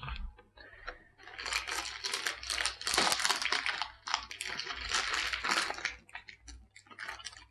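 Rustling and crinkling of paper and plastic sheets being handled, in irregular bursts from about a second in to about six seconds in.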